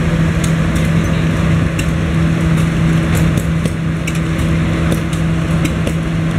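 Belt-driven shingle mill running and cutting a wood block into shingles: a loud, steady hum with scattered sharp clicks and rattles from the machine.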